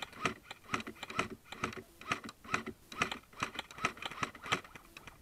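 Steady footsteps of a person walking, about two steps a second, each step a short sharp knock.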